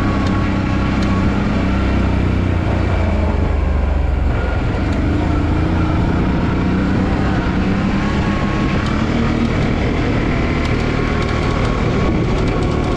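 A motor vehicle's engine running steadily under way: a loud, continuous low drone whose pitch drifts a little.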